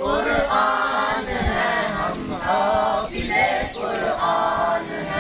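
Many voices chanting together in unison, in drawn-out phrases about a second long.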